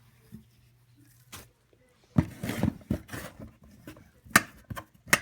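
Handling noises as attachments, papers and a cardboard box are moved: a cluster of knocks and rustling about two seconds in, then two sharp clicks near the end.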